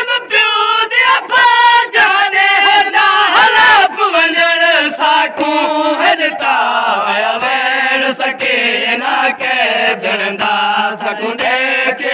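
Noha, a Shia mourning lament, chanted by male voices in Saraiki/Sindhi. About four seconds in, the chant drops in pitch and the notes are held longer.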